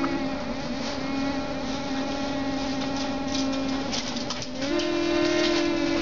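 Blizzard wind whistling through an old house, a steady held moaning tone with overtones. The pitch steps down a little just after the start and rises again about four and a half seconds in, where a second note sounds with it.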